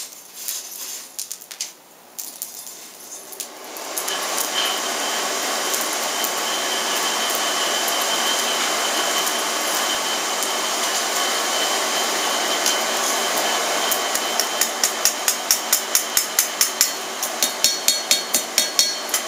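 Hand hammer striking a hot steel bar on an anvil, flattening the tip of a forged bottle opener: a quick, even run of blows at about three a second, starting near the end. Before that, a few light metal clinks, then a steady rushing noise from about four seconds in that carries on under the hammering.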